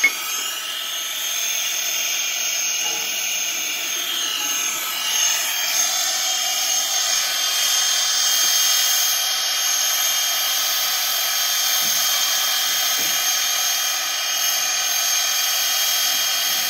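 Standing steam locomotive, the 1910 2-6-0 Mogul Canadian National 89, giving off a steady hiss with a high, even whine.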